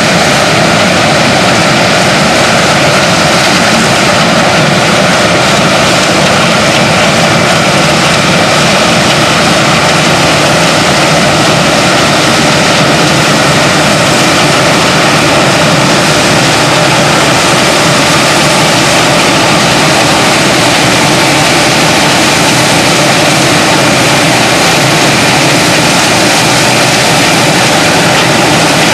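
Claas Lexion 480 combine harvester at work harvesting rice: engine and threshing machinery running steadily and loudly, with a faint steady whine over a dense mechanical noise.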